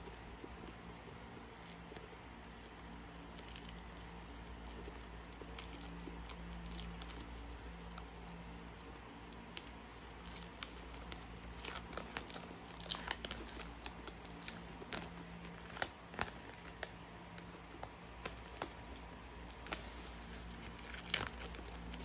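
Clear plastic shrink-wrap being peeled and torn off a cardboard album box by hand, crinkling with scattered sharp crackles that grow busier about halfway through.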